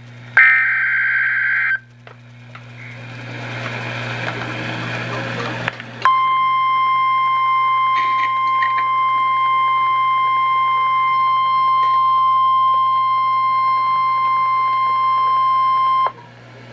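Emergency Alert System tornado warning coming through a NOAA Weather Radio receiver. It opens with the last of the SAME digital header bursts, a warbling data screech lasting about a second and a half, followed by a few seconds of rising static. About six seconds in, the steady single-pitch weather radio warning alarm tone starts, holds for about ten seconds and cuts off sharply, all over a low steady hum.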